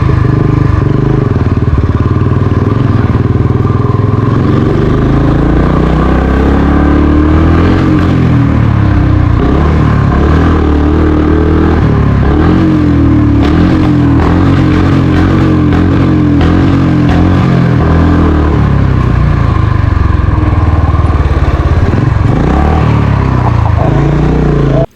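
Motorcycle engine running while riding, its pitch rising and falling with the throttle; it cuts off abruptly at the end.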